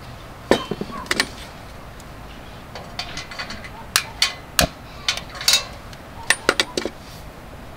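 Sharp metallic clicks and clinks in three short clusters as a Petromax HK500 pressure lantern is handled and its pump knob worked.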